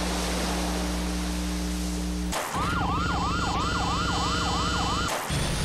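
Abstract electronic sound composition. A dense wall of hiss over steady low drones cuts off abruptly about two and a half seconds in, giving way to a siren-like tone warbling up and down about three times a second over steady higher tones, which breaks off near the end as rising glides begin.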